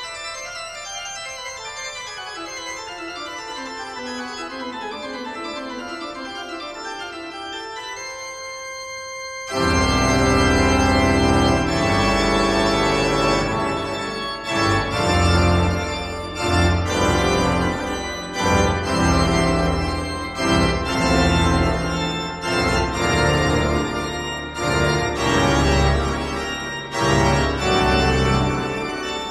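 Instrumental music. For the first nine seconds or so it is quiet, high sustained notes over a slowly falling line, then it turns suddenly loud and full, with a heavy bass and a pulsing beat.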